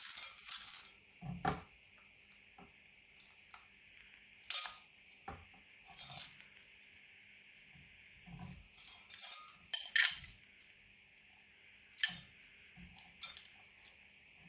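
Glitter slime being mixed in a container: a string of irregular sharp clicks, scrapes and light clinks, the loudest about ten seconds in.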